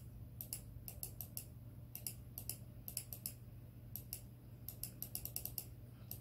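Faint, light clicking at a computer: short clusters of quick clicks, several a second, with pauses between them, over a steady low hum.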